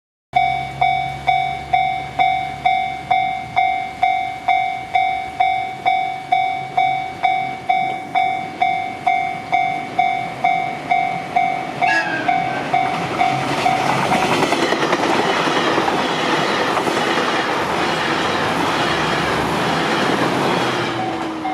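Japanese railroad crossing's electronic warning bell dinging at about two strokes a second. About twelve seconds in a short train horn sounds, then a JR Shikoku Anpanman electric train passes, its wheels clattering over the rail joints and drowning out the bell.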